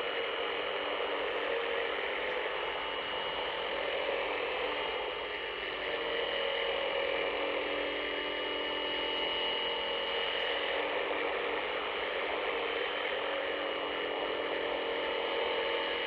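UVB-76 "The Buzzer" shortwave station on 4625 kHz, heard through a shortwave radio: a steady, rasping buzz mixed with static and faint wavering tones.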